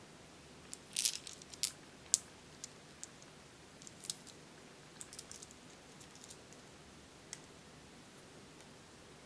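Small plastic charms clicking and tapping against each other as they are handled: a scatter of light, sharp clicks, loudest and closest together about a second in, then sparser and fading out.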